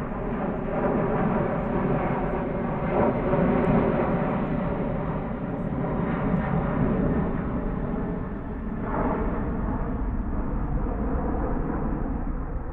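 An airplane's engine running steadily, a continuous hum of several even tones.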